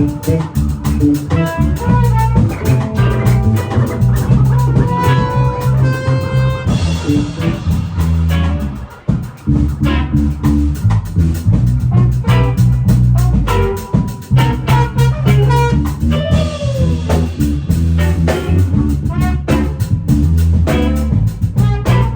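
Band music with guitar, bass guitar and drum kit playing a song, with a short break about nine seconds in.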